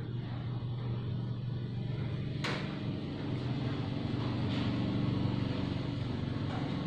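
A steady low motor hum, with a single sharp click about two and a half seconds in.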